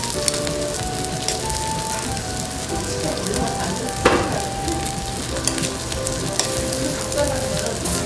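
Pork belly, duck and sausage slices sizzling on a hot tabletop grill plate: a steady hiss with fine crackles. One sharp knock about halfway through.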